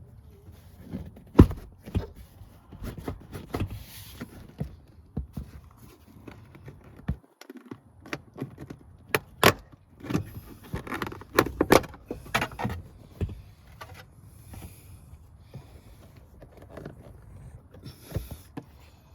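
Irregular clicks, knocks and rattles of plastic car trim and cable being handled while a wiring run is routed behind a rear bumper trim panel. The loudest knock comes about a second and a half in.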